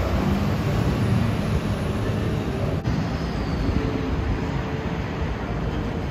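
City street traffic with a yellow school bus driving past, a steady rumble of engines and tyres. The sound changes abruptly about three seconds in, at a cut between clips.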